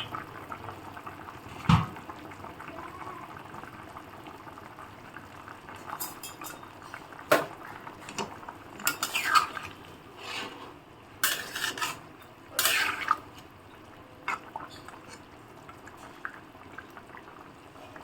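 A spoon clanking and scraping against a metal pot of simmering thin curry, with a sharp clank about two seconds in and a run of scraping strokes in the middle. The curry simmers quietly underneath.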